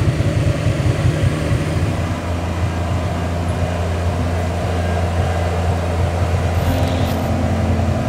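Vehicle engine running steadily with a low, even drone.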